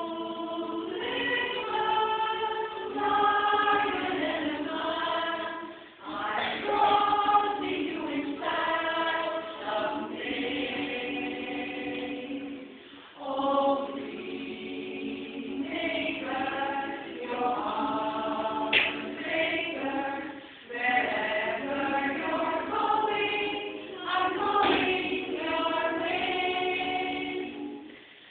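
Women's barbershop chorus singing a cappella in close harmony, in phrases with short pauses between lines.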